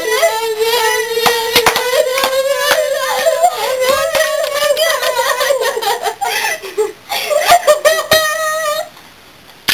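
A girl's voice holding one long high note for about nine seconds, wavering slightly upward, while hands slap and clap together many times. The note cuts off suddenly near the end.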